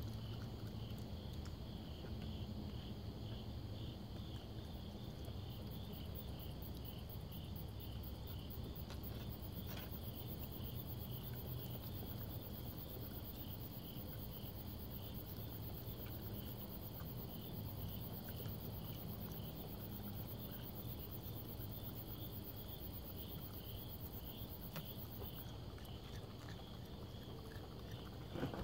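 Crickets chirping in a steady, pulsing trill. A couple of short knocks come near the end.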